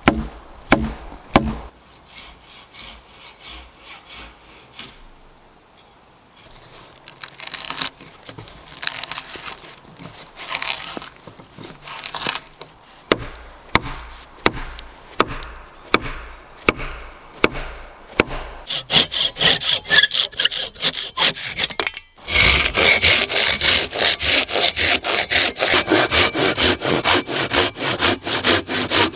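Hand saw cutting through wood, back-and-forth strokes that start slow and get faster and louder in the last seven seconds. A few sharp knocks come right at the start.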